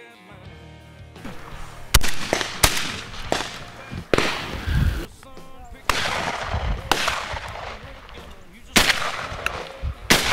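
Shotgun shots in a string of about half a dozen loud reports a second or more apart, each ringing out with a short echo, mixed with a few fainter shots.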